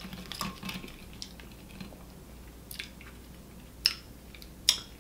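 Close-up eating sounds of a person eating an onion ring: faint small sounds as the ring is dipped in a sauce cup at first, then three short, sharp mouth smacks in the second half while licking his fingers.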